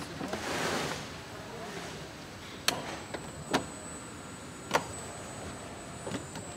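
Car-factory assembly-line noise: three sharp clicks or knocks about a second apart, with a few weaker ones near the end, over steady hall noise, and a thin high whine in the middle.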